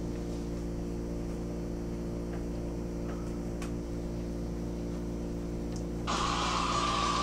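Steady electrical hum with a few faint ticks; about six seconds in, loud distorted music cuts in suddenly.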